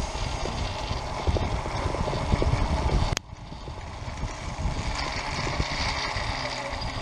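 Small cable-car cage running along its overhead cable across a river: a steady rumble with scattered small knocks from the pulley and frame, and a sharp click about three seconds in.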